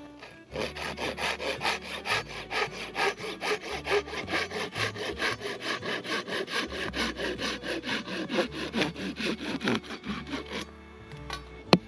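Hand saw cutting through wood in quick, even back-and-forth strokes, about four or five a second, stopping shortly before the end.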